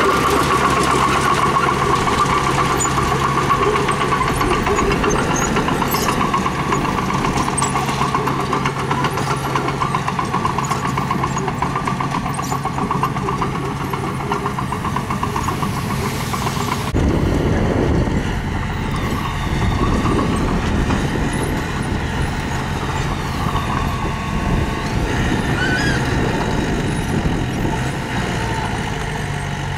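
Construction machinery engine running steadily, from the mini bulldozer or the stone truck at work. The sound changes abruptly a little over halfway through.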